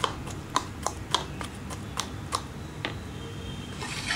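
Metal fork clicking against a plastic bowl while stirring a wet egg and chopped-vegetable mixture: irregular light clicks, about three a second, for the first three seconds, then a brief hiss near the end.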